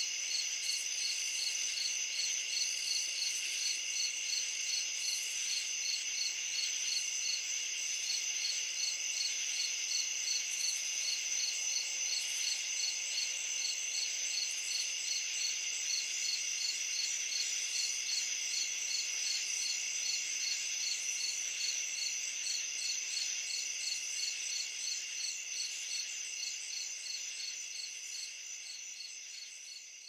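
Summer night chorus of crickets: several steady high trills layered together, one chirping in a regular pulse about two or three times a second. It fades out over the last few seconds.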